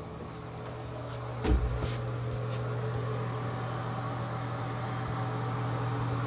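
A steady low machine hum, with a single thump about a second and a half in.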